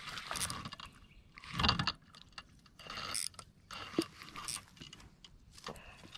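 Spinning fishing reel cranked in several short spells, with mechanical whirring and clicking from its gears.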